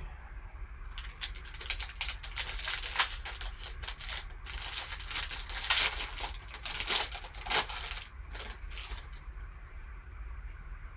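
A trading card pack's wrapper being torn open and crinkled, a run of irregular crackles and rustles that dies down to quieter handling about nine seconds in.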